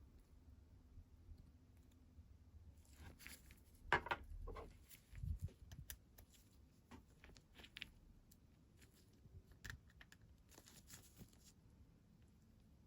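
Faint handling noises from work on a Webley CO2 revolver replica: scattered small clicks and scrapes, with a sharp knock about four seconds in, a dull thud just after, and a short rustle near the end.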